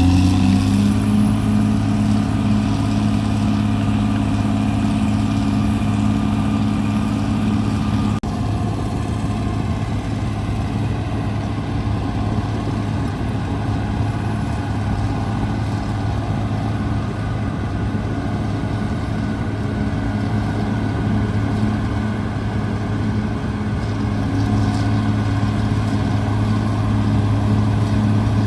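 Caterpillar D6R XL bulldozer's diesel engine running steadily at working speed, with a low, even engine note that grows a little fuller and louder in the last few seconds.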